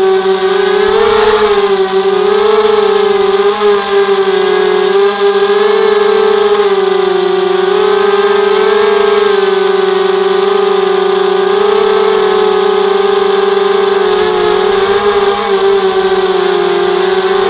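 Mini H4 250 quadcopter's four RCTimer 2300 kV brushless motors with 5x3 carbon-fibre propellers whining steadily, the pitch wavering slightly up and down, heard loud and close from the camera mounted on the craft.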